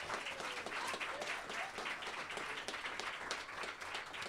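Small audience applauding with steady clapping.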